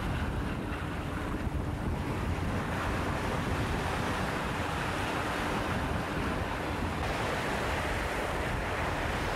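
Small waves breaking and washing among rocks and pebbles on a rocky shore, a steady surf wash, with wind buffeting the microphone.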